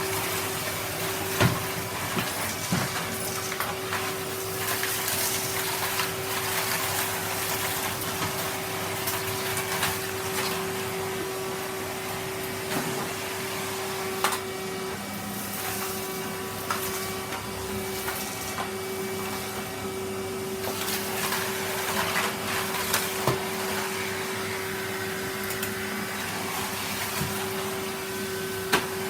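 Vacuum cleaner running with a steady motor hum, picking up crushed hazelnut shells, with sharp clicks now and then as bits of shell are sucked in.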